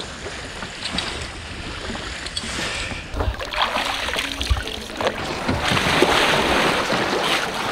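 Lake water splashing and sloshing around a person wading and moving his hands through it. It gets louder and rougher about three seconds in, with a few low thumps.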